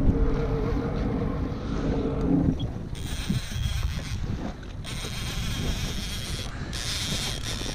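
Sea-Doo personal watercraft engine running low and steady, its tone dropping out about two and a half seconds in. After that, wind buffeting the microphone over choppy water.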